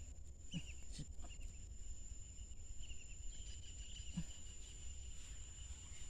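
Faint rural outdoor ambience: a steady high insect drone with short bird chirps in the first second or two, over a low rumble of wind.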